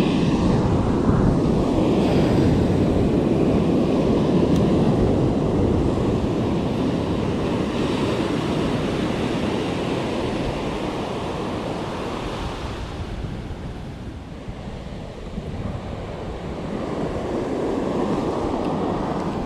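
Pacific surf breaking and washing up the sand at the shoreline, a steady rushing that eases off about two-thirds of the way through and builds again near the end.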